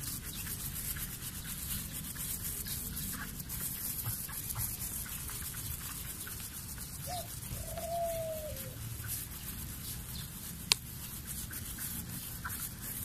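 Sponge rubbing across car window glass coated with acid rain remover, faint because the glass has gone smooth and no longer grips. A short bird call a little after halfway, and a single sharp click late on.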